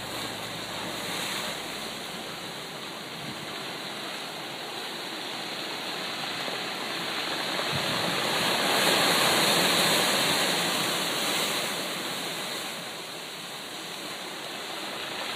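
Ocean surf breaking and washing over shoreline rocks: a steady rushing wash that swells to its loudest about nine seconds in, then eases off.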